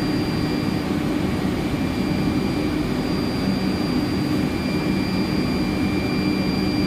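Steady drone of running electrical equipment and cooling fans, with a low hum and a thin high-pitched whine.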